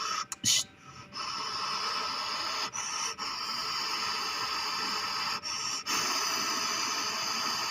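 Panasonic mini split air conditioner's outdoor unit running, its fan giving a steady whooshing noise that dips briefly a few times.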